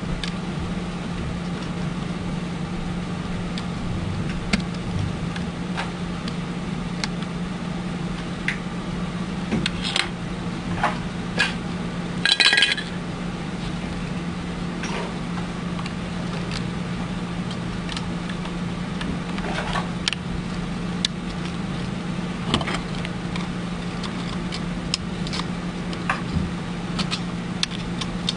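Scattered small clicks and taps of parts being handled while a syringe pump is reassembled, over a steady low hum, with one brief louder rattle about halfway through.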